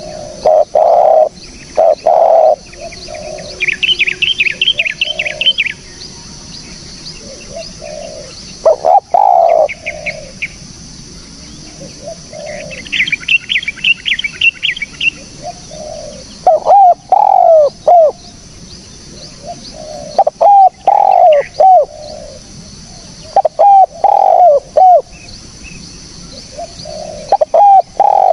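Spotted dove (tekukur) cooing, several phrases of low, slightly falling coos repeated every few seconds. Twice a smaller bird breaks in with a rapid high chirping trill, and a steady high buzz runs underneath.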